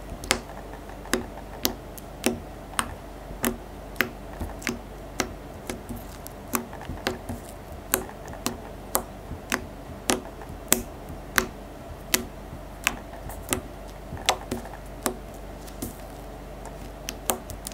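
Fingertip poking and pressing into soft, slippery glue-and-gel-toothpaste slime, each poke giving a short sharp click or pop. The pokes come in a steady rhythm of a little under two a second, bunching a little closer together twice.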